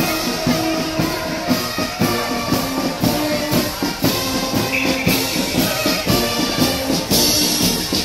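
Military marching band playing a march while on the move: drums keep a steady marching beat under a brass melody.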